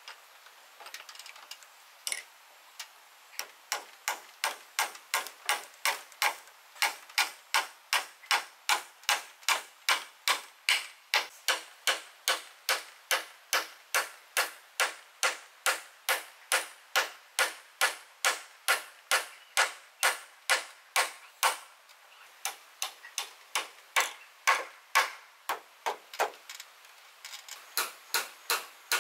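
A hand tool striking over and over in a steady rhythm of about two sharp blows a second, with two short pauses near the end.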